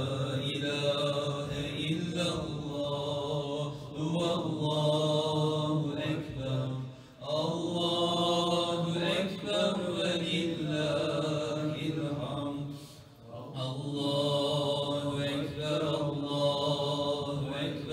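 A man's voice chanting a slow, melismatic Islamic devotional chant (salawat) into a microphone, holding long, wavering notes. He pauses briefly for breath about 7 and 13 seconds in.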